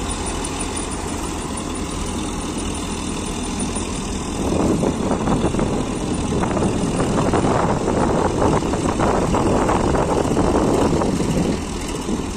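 Swaraj 855 tractor engine running a tractor-mounted soil loader, with a steady engine note at first. About four seconds in it turns louder and rougher for about seven seconds as the loader's elevator lifts soil and pours it into the trolley, then it eases back near the end.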